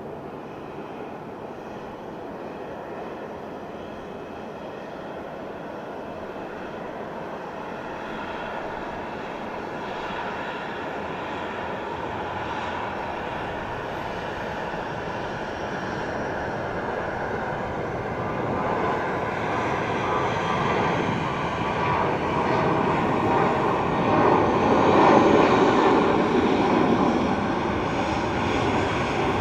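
Jet engines of a Boeing 777-200ER, heard as a steady rushing drone with faint whining tones that grows slowly louder, is loudest about 25 seconds in, then eases slightly.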